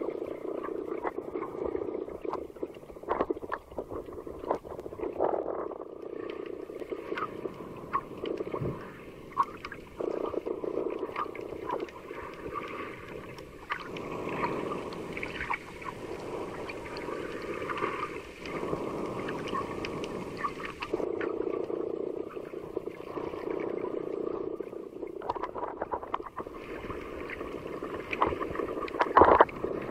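Underwater sound through a waterproof camcorder's microphone: muffled surging and sloshing of sea water that swells and fades every few seconds, with scattered clicks and crackles.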